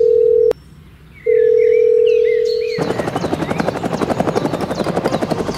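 A phone's outgoing call tone: a steady beep that cuts off with a click, pauses, then sounds again for about a second and a half. Then a helicopter sound effect takes over, its rotor chopping at about five beats a second.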